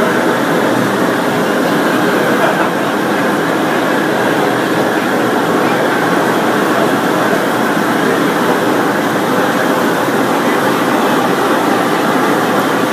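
Steady hubbub of many people talking at once, with no single voice standing out.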